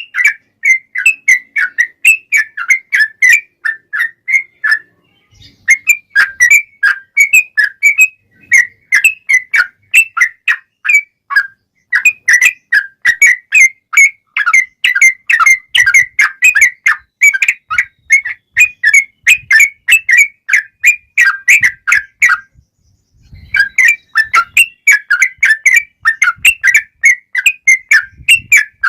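Yellow-vented bulbul (trucukan) singing its long, rapid 'ropel' song: runs of quick chirping whistled notes, several a second, breaking off briefly twice.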